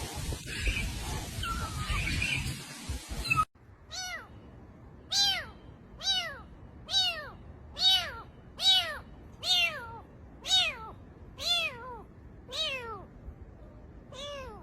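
Rustling noise for the first few seconds, then after a sudden cut a cat meowing repeatedly: about a dozen short meows, each rising and then falling in pitch, a little under a second apart.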